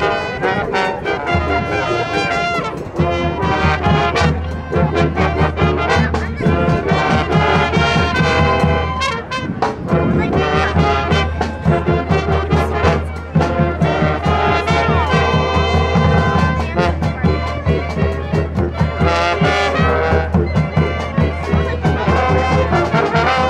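Marching band playing a brass-led number: trumpets, trombones and sousaphone over a steady drum beat.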